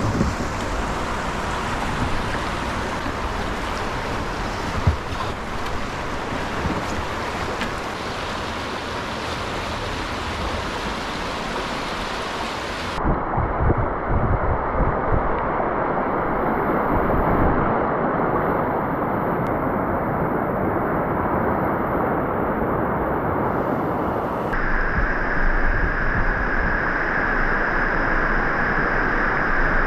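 Rushing river whitewater with wind buffeting the microphone, a steady hiss of moving water. The character of the noise changes abruptly twice, about 13 and 25 seconds in.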